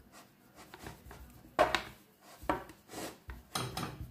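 Rolling pin rolled and pressed over dough on the rim of a frying pan, rubbing and knocking against the metal edge in a few short strokes.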